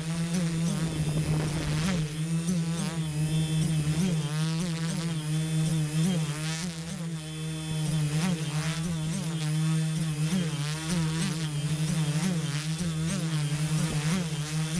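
Multirotor drone's Turnigy Multistar 4822 690 Kv brushless motors and propellers buzzing in flight, heard from on board the craft. A steady low hum runs under higher tones that waver up and down as the motor speeds keep changing.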